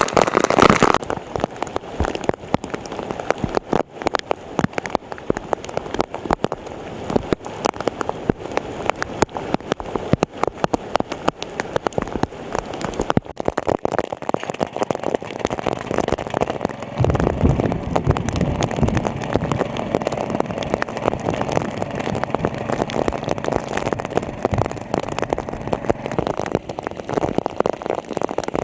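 Steady rain with dense crackling drops. About seventeen seconds in, a low engine rumble joins: the small engine of the water pump running.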